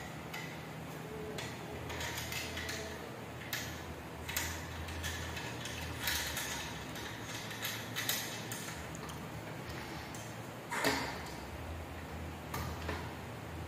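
Stainless steel telescopic fence being handled: its metal slats and end fittings slide and clink against each other in irregular clicks and scrapes, with one sharper clack near the end.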